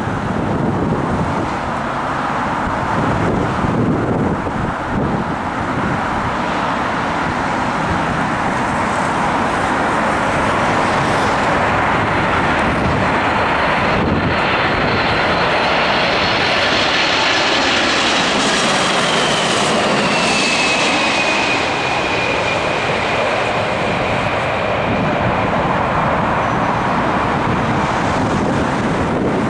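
Jet engines of a Boeing 747 on landing approach passing close overhead: a steady rushing engine noise with a high whine that drops in pitch as the aircraft goes by. Wind buffets the microphone in the first few seconds.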